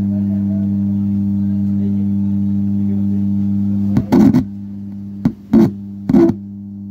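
A 4440 IC power amplifier puts a loud, steady low mains hum through its speaker, the fault being repaired. About four seconds in, several loud crackling pops break in and the hum falls back between them. The repairer sets out to cure the hum by replacing a small 1000 µF 16 V capacitor.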